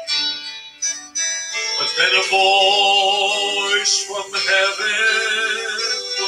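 Gospel song sung into a hand-held microphone and amplified through PA speakers, a man's voice holding long notes with vibrato.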